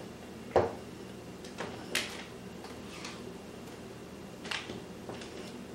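A few scattered light knocks and clicks of a spoon and kitchen utensils handled on a counter while white icing is scooped into a piping bag, the sharpest about half a second in and others near two and four and a half seconds.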